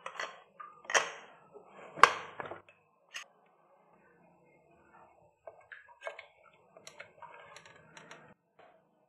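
Sharp metallic clicks and clanks as the weight and lid of an aluminium pressure cooker are handled and taken off, the loudest about two seconds in. About halfway through, a wooden spatula starts stirring and mashing soft cooked moong dal and cabbage in the cooker, with soft wet stirring sounds and light knocks against the pot.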